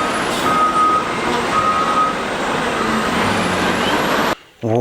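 A heavy vehicle's engine noise with a reversing alarm beeping three times, long even beeps; the whole sound starts and cuts off suddenly.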